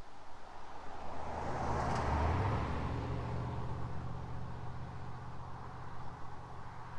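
A car driving past: its tyre and engine noise swells to its loudest about two seconds in, then slowly fades while a low engine hum lingers.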